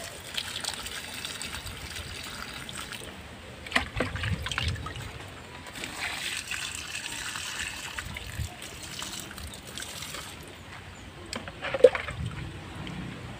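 Water poured by hand from a pitcher onto plant leaves and soil, trickling and splashing, in two pours. A single sharp knock near the end.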